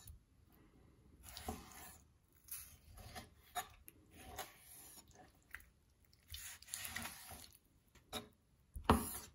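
Kitchen knife slicing raw fish into pieces on a cutting board: a series of irregular short cutting strokes, several ending in a light tap of the blade on the board, with a sharper knock near the end.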